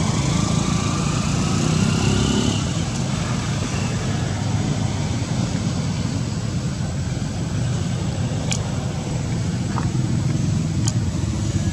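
Steady low rumble of outdoor background noise, like traffic, with a few faint clicks in the last few seconds.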